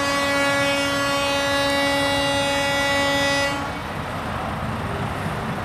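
A vehicle horn sounding one long, steady blast of about three and a half seconds that cuts off sharply, over the steady noise of idling traffic.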